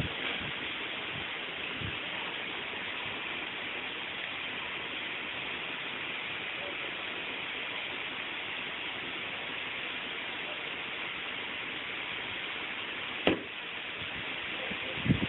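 Steady hiss of recording noise, broken by a sharp knock about thirteen seconds in and a couple of lighter knocks near the end as the mackerel is handled and laid down on a hard surface.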